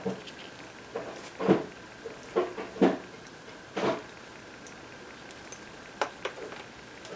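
Hand handling of small plastic syringe parts and tubing: a string of soft rubs, taps and clicks as the pieces are fitted together, busiest in the first four seconds, with two sharp clicks about six seconds in.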